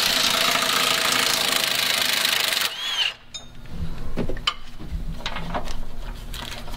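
Cordless impact wrench running on a bolt under a truck's front frame, then stopping abruptly about two and a half seconds in. It is followed by scattered metallic clinks and knocks of tools and parts being handled.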